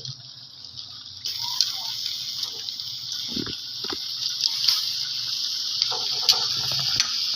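Shrimp sizzling in a pan of melted butter and browned garlic. The hiss starts about a second in and then holds steady, with a few light knocks of a utensil in the middle.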